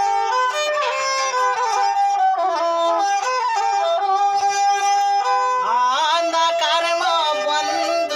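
Nepali sarangi bowed in a folk melody of held notes. About six seconds in, a man's voice joins, singing with quick sliding ornaments.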